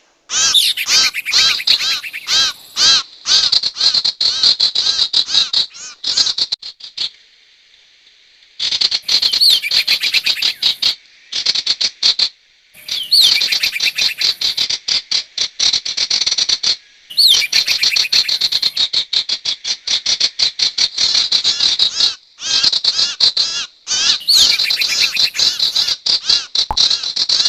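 Sirtu bird calls from a bird-lure recording: long runs of rapid, high, sharply repeated chirping notes, broken by a pause of about two seconds a quarter of the way in and a few shorter breaks.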